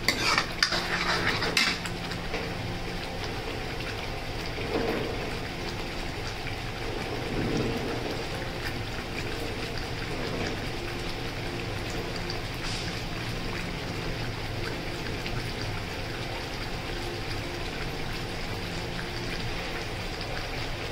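Thick ground-onion masala paste simmering and bubbling steadily in a steel kadai on a low gas flame, cooking down to the point where the oil separates. A ladle scrapes and clicks against the pan briefly in the first couple of seconds.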